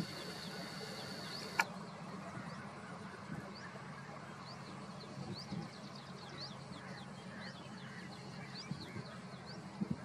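Birds calling in short rising chirps, several a second, over a steady low background hum. Near the start a steady high whine cuts off with a sharp click about a second and a half in.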